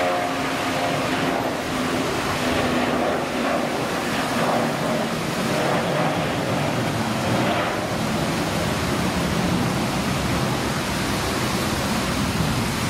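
Airbus A320-family jet airliner's engines at takeoff thrust as it lifts off a wet runway and climbs away: a steady, even rushing noise, with a few faint tones at the very start that fade within the first second.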